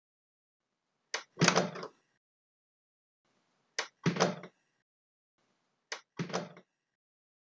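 Interior door sound effect, heard three times about two seconds apart: each time a sharp latch click, then a heavier thud of the door.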